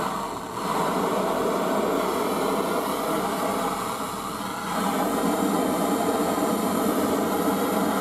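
Double-nozzle brass gas torch on a gas canister burning with a loud steady hiss, lit with a sharp click at the start. The hiss eases slightly about four seconds in, then rises again.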